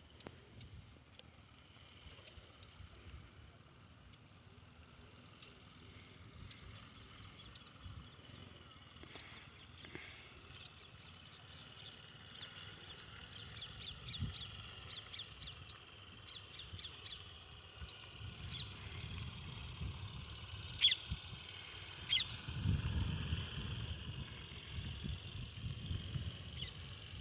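Outdoor ambience of small birds chirping in many short, high calls. A low rumble grows through the second half, and two sharp clicks come about a second apart roughly three-quarters of the way through.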